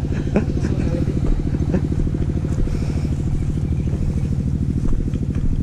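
Honda CB150X motorcycle's single-cylinder engine idling steadily with an even, regular pulse.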